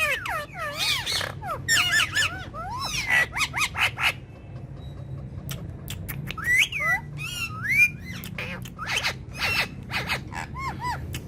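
Parrots calling and chattering: quick bursts of gliding whistles, squawks and clicks from more than one bird, with a pause of about two seconds near the middle.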